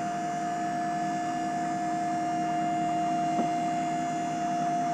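Boss Power-V plow's electric-hydraulic pump running with a steady whine as it powers the lift tower down during unhooking.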